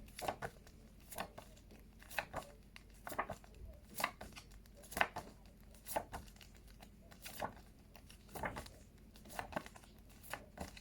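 Paper flashcards being handled and flipped one after another: a short crisp rustle or click about once a second.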